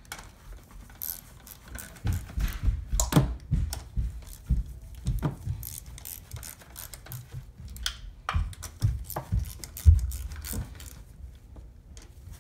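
Hand ratchet and socket running down the valve cover bolts on a GM 2.4 Ecotec engine: irregular metal clicks and clinks of the ratchet and tools, with dull knocks, the loudest about ten seconds in. The bolts are being snugged evenly all around so the valve cover settles before they are cranked down to torque.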